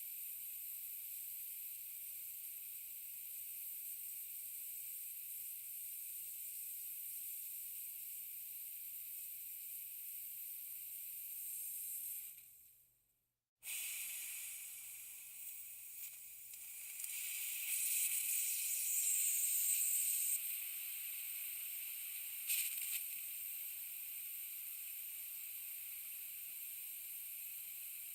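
Compressed air hissing from a slow leak in an air tank: a steady high-pitched hiss that fades out to silence about halfway through, starts again, and swells louder for a couple of seconds, with one short burst a little later.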